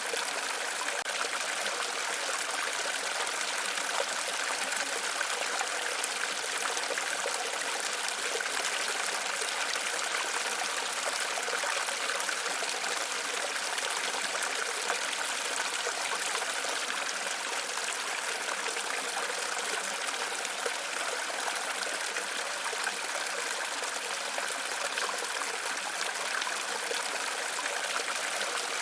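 Waterfall: a steady, unbroken rush of falling water, bright and hissing, with little deep rumble.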